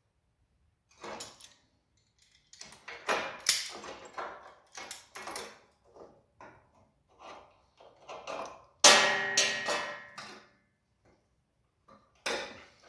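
Irregular knocks and clatters of metal parts and tools being handled. About nine seconds in comes the loudest, a sharp metallic clang that rings on briefly, and one more knock comes near the end.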